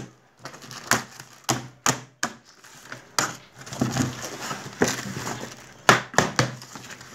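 Packing tape and cardboard of a shipping box being ripped and cut open by hand: a string of irregular sharp rips and cracks.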